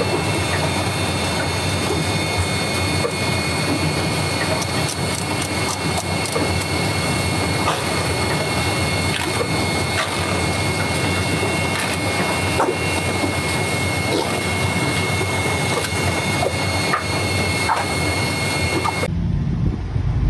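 Assembly-line machinery running with a steady hiss and several high whining tones, while small plastic components click and clatter as they are slid and stacked on a metal bench. The sound cuts off suddenly about a second before the end.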